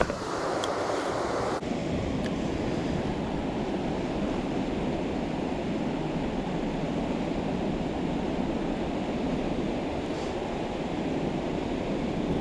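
Steady rushing of river water flowing over shallow rapids and riffles. About a second and a half in, the sound turns duller, losing its hissing top.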